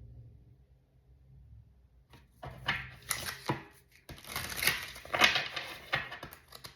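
A tarot deck being shuffled and handled: a run of papery rustling and slapping with quick clicks, starting about two seconds in after a nearly quiet start.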